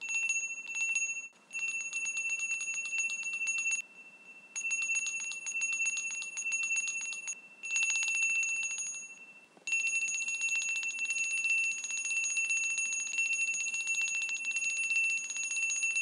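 A small bell rung rapidly, its clapper striking many times a second over a steady high ringing pitch. It comes in several bursts with short pauses, then rings without a break from about ten seconds in.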